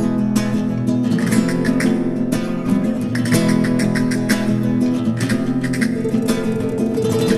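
Acoustic guitar strummed in a brisk flamenco-rumba rhythm, played as an instrumental intro with no singing.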